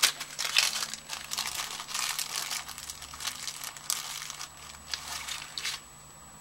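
Crinkling of a small plastic packet being handled, an irregular run of crackles that stops shortly before the end.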